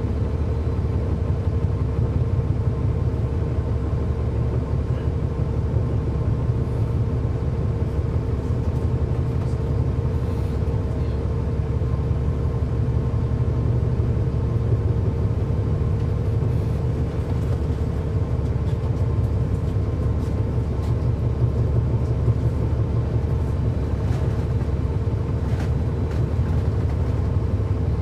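Cummins ISL9 diesel engine of a 2009 NABI 416 transit bus running steadily, heard from on board: a constant low rumble with a steady hum over it and no change in pitch.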